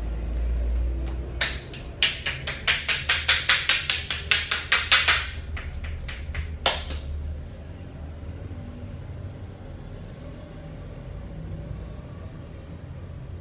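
Rapid rhythmic hand slaps on the head during an Indian head massage, about six strikes a second for roughly four seconds, then one last slap. A low steady rumble runs underneath.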